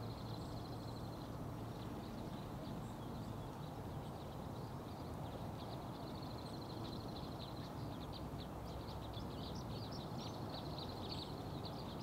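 Small songbirds singing high, thin trills near the start and again around four to six seconds in, then a quick run of short high chips toward the end, over a steady low rumble of outdoor background noise.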